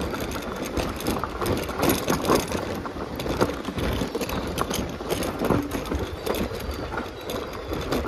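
A motorcycle running on the road: a steady engine and road noise with many irregular knocks and rattles.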